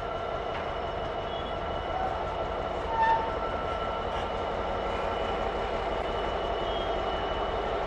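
Class 66 diesel locomotive's two-stroke V12 EMD engine running steadily as the locomotive moves slowly. A short high squeal comes about three seconds in.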